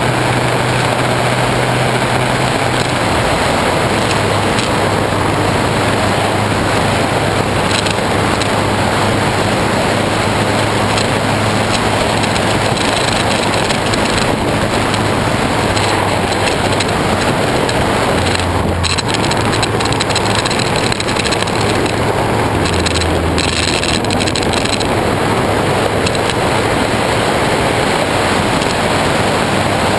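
Honda CBF600S inline-four engine running while riding, heard through the GoPro's sealed waterproof housing: a loud, dense rushing noise over a low engine hum. The engine note steps down about three seconds in and shifts again a few times later. The strange noisy sound comes from the waterproof housing.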